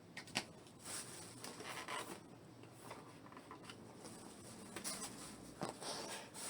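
Light handling noises: a few sharp clicks and knocks with two stretches of rustling, as of objects and packaging being moved and handled.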